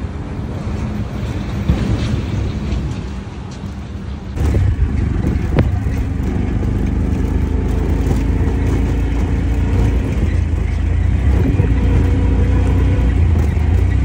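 A motor vehicle's engine running steadily as a low drone. About four seconds in it turns abruptly louder and deeper and holds there.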